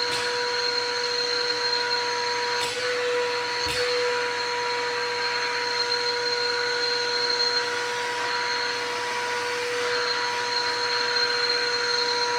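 Stanley 4-gallon wet/dry shop vacuum running steadily: an even motor whine over rushing air, with a couple of faint clicks a few seconds in.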